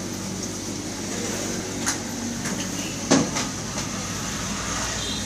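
Steady low hum and background noise, with a light click about two seconds in and a sharper, louder knock about a second later.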